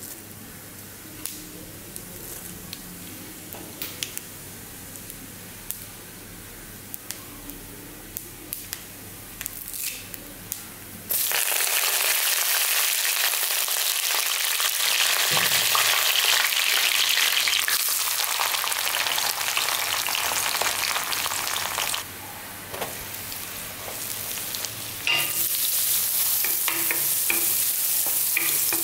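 Tempering seeds crackling with scattered pops in hot oil in an aluminium kadai. About eleven seconds in, the sound jumps to a loud sizzle as curry leaves hit the oil. Near the end, chopped onion and garlic sizzle while being stirred with a spatula.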